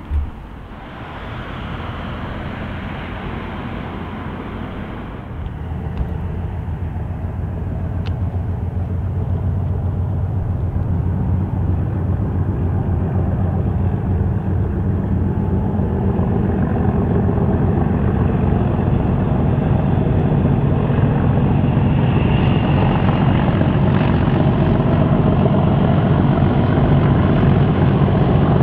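Class 37 diesel locomotives approaching, their English Electric V12 engines a low rumble that grows steadily louder. A single sharp thump right at the start.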